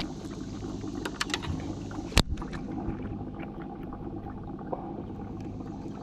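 Knocking and clicking aboard a fishing boat over a steady low hum: a few sharp clicks about a second in, then one loud knock a little over two seconds in.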